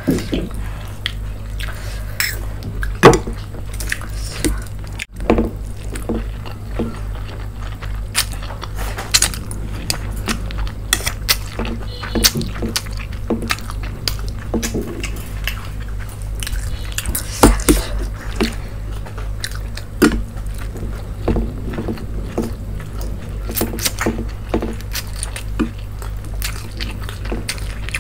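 Close-miked eating: chewing and slurping of spicy noodles and manchurian, with irregular wet smacks and clicks of fingers and a fork on steel plates, over a steady low hum.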